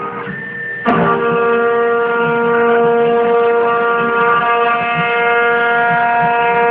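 CNC 3040 router spindle and end mill cutting a circular pocket in aluminium plate: a steady, high, singing whine with several overtones. It is quieter for the first second and comes back abruptly with a sharp click as the cutter bites again.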